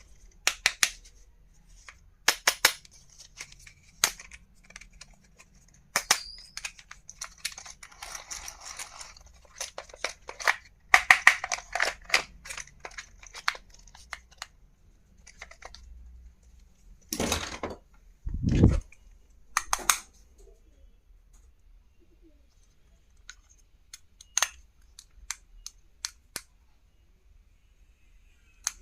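Hands unpacking and handling plastic stationery and its packaging: scattered clicks and taps, a short stretch of rustling about eight seconds in, a quick run of clicks around eleven seconds, and a heavier thud at about eighteen seconds.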